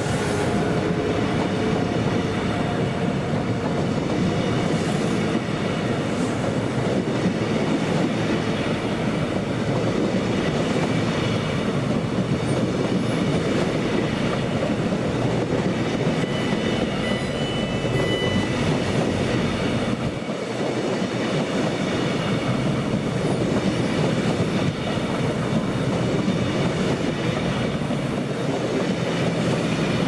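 Caledonian Sleeper coaches rolling past at speed: a steady rumble of wheels on rail with clickety-clack over the rail joints, and a faint high wheel squeal about halfway through.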